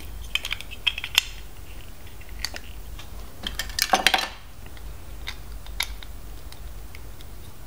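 Hard plastic LEGO DUPLO bricks clicking and clacking as they are handled and pressed together, with a short burst of clatter about four seconds in.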